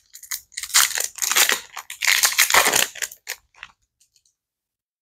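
Foil booster-pack wrapper of a Disney Lorcana trading card pack crinkling and crackling in the hands as it is opened, in a run of short crackly bursts that stop a little under four seconds in.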